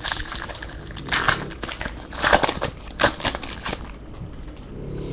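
Shiny wrapper of a trading-card pack being torn open and crinkled, with several sharp crackling tears over the first few seconds, then quieter handling of the cards.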